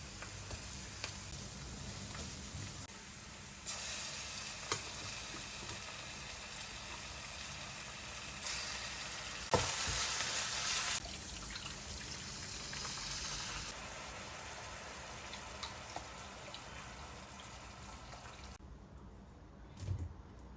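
Food sizzling as it fries in a pan: a steady hiss with a few light clicks. It is loudest for a second or so about halfway through and drops away sharply near the end, followed by a soft thump.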